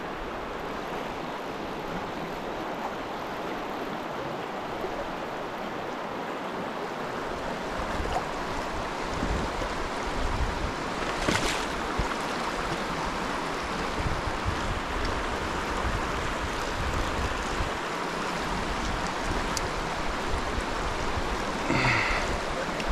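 Steady rushing of a shallow rocky river's riffles and rapids, with uneven low wind rumble on the microphone from about a third of the way in.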